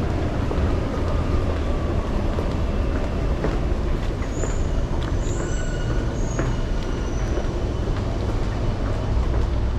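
Singapore MRT train in motion: a steady rumble of wheels on track, with a few brief, faint, high wheel squeals about halfway through.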